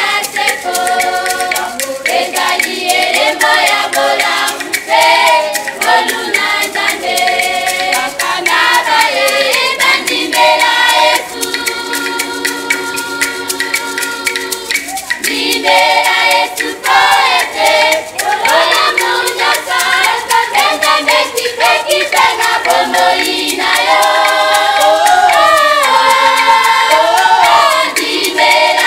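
Youth choir of girls' and young women's voices singing a Lingala gospel song a cappella, with hand claps keeping time. Around the middle the voices hold one long chord.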